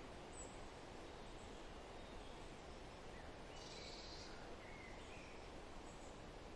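Faint, steady outdoor background noise with a few short, faint bird calls, the clearest a high chirping about three and a half seconds in.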